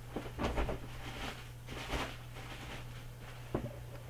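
Irregular rustling of tissue paper and a gift bag being handled, with a few soft knocks and clicks, over a steady low electrical hum.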